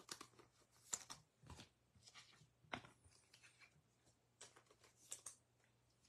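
Faint handling noise of trading cards: a handful of light, scattered clicks and rustles that stop about five and a half seconds in.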